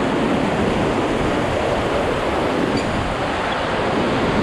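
Beas River whitewater rushing around a raft as it runs through a rapid: a steady, loud rush of churning water.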